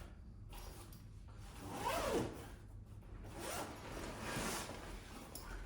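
Three rasping, sliding strokes, the first about two seconds in and the loudest, the other two a second or so later.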